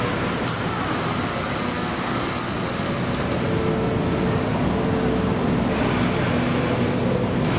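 Steady rumbling background noise of a busy metro station entrance hall, with faint short hum tones now and then in the middle.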